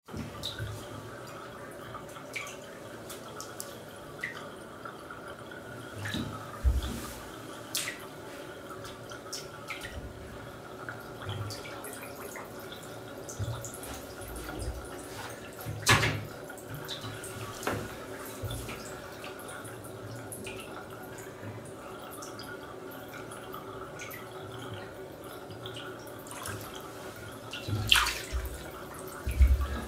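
Bathwater in a filled tub lapping and dripping as a sock-clad foot steps in and moves among submerged boots, with a few sharper splashes, the loudest about halfway through and near the end.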